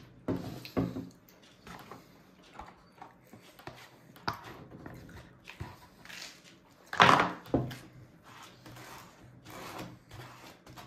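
Babies eating at their high-chair trays: scattered small knocks and taps of hands and food on the trays, with one louder burst about seven seconds in.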